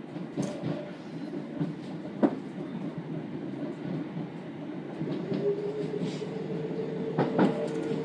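An electric commuter train running between stations, heard from inside the carriage: a steady low rumble, with a few sharp clicks of the wheels over rail joints. A steady hum sets in about five seconds in.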